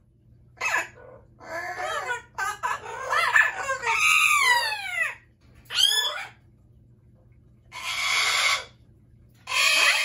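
Amazon parrots calling: a string of loud whistled calls that swoop up and down in pitch through the first half, then two harsh squawks in the second half, with short quiet gaps between.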